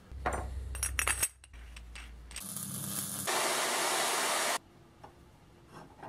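Metal clinks of a wrench working the adjusting nuts on a band sawmill's blade-guide roller mount, as the roller is tilted down to level the blade. About three seconds in, a steady hiss follows that lasts over a second.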